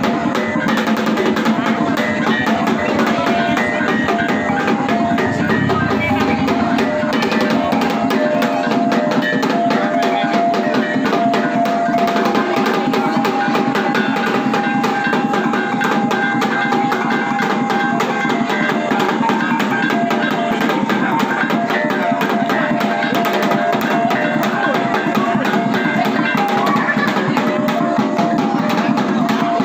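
Maranao kulintang ensemble playing: a row of small bossed gongs carries a ringing melody over a continuous, steady beat from large hanging agung gongs.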